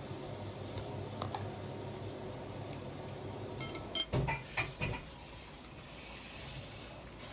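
A quick run of light clinks and taps of tableware, like a utensil knocking on a dish, about three and a half to five seconds in, over a steady low hum.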